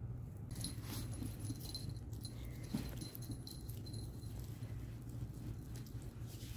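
Small dog playing with a rope toy on a hard floor: light metallic jingling and a run of small clicks and scuffs as it moves and grabs the toy, starting about half a second in, with one sharper knock midway.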